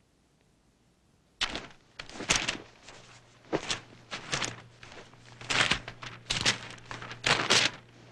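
Sheets of paper rustled and shuffled by hand as foley, in a series of about a dozen loud, uneven bursts starting about a second and a half in.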